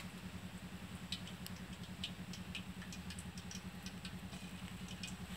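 Steady low hum of a small engine or motor running with a fast, even pulse, with scattered light ticks over it.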